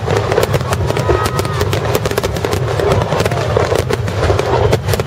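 A dense barrage of aerial fireworks shells bursting in quick succession: a continuous string of bangs and crackles over a steady low rumble, with no break.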